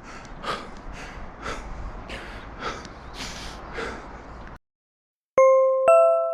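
A man breathing hard in short, sharp gasps, about two a second, the cold-shock breathing of wading into 7 °C lake water. After a brief silence, two bright ringing chime notes sound near the end.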